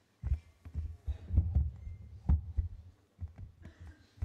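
Irregular low thumps and knocks of papers and hands handled on a lectern, picked up close by the podium microphone.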